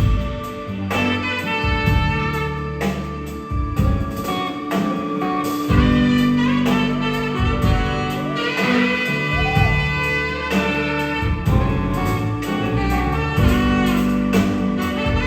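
Music: an instrumental piece with pitched melody lines over a sustained bass and a regular beat.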